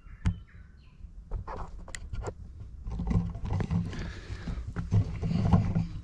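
A few sharp clicks, then footsteps on dry dirt with rustling and knocks as the camera is picked up and handled.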